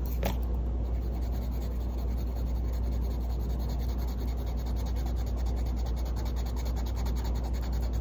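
A Caran d'Ache Luminance colored pencil scratching back and forth on paper as a color swatch is shaded in, in rapid short strokes, over a steady low hum.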